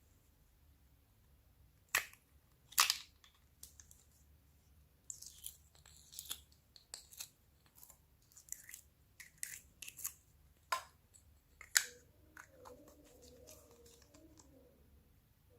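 Slime being squeezed and kneaded by hand, making irregular sticky clicks, pops and crackles that come thickest in the middle. A faint low wavering squish follows near the end.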